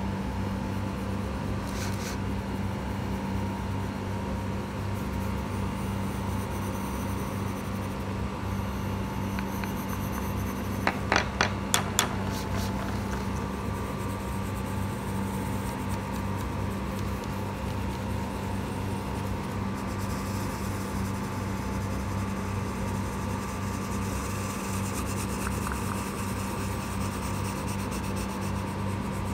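Colored pencil rubbing on paper as it shades, over a steady hum. About eleven seconds in comes a quick run of about five sharp clicks.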